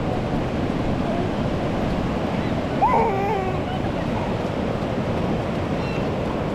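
Ocean surf washing steadily onto a sandy beach, with wind buffeting the microphone. A brief high gliding call, such as a distant voice, rises over it about three seconds in.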